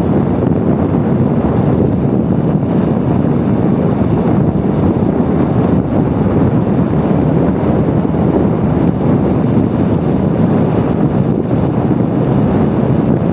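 Wind buffeting the microphone of a motorbike coasting downhill in neutral with its engine switched off: a steady, even rush with no engine note.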